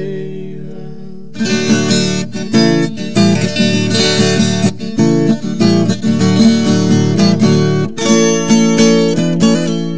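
Music: a held chord fades for about a second, then an acoustic guitar instrumental break of quick plucked and strummed notes over a steady strummed accompaniment.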